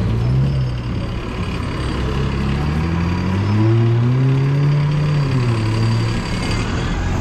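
A road vehicle's engine running, its pitch climbing smoothly over a few seconds, holding, then dropping back about five seconds in.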